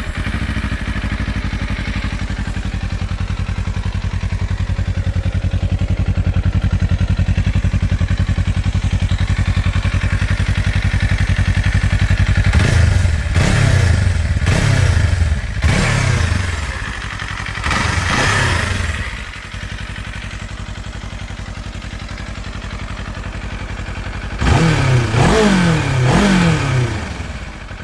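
Kawasaki KLE 500's 451 cc parallel-twin engine idling steadily through its exhaust. About halfway through it is revved in a series of short throttle blips and one longer rev, then it settles back to idle and is blipped again several times near the end.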